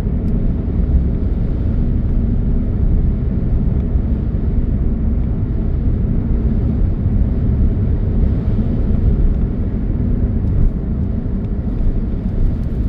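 Steady low rumble of a car heard from inside its cabin: engine, tyre and wind noise with no distinct events.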